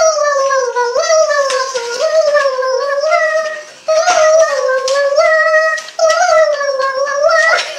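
A high-pitched voice holding long, wavering notes one after another, each gliding up and down and lasting about a second, with brief breaks between them.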